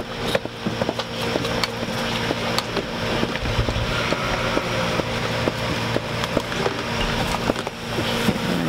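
Hand-pump vacuum goat milker at work: milk and air sputtering through clear tubing into a glass mason jar, with many small clicks and a steady low hum.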